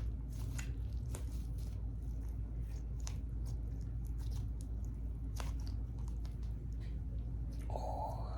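Slime being squished and poked by hand, with scattered soft clicks and crackles over a steady low hum.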